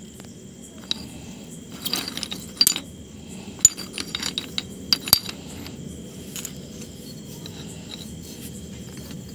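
Small rectangular stone bars clinking and scraping against one another as a finger moves them about in a pile: sharp, scattered clicks, most between about one and five seconds in, sparser near the end.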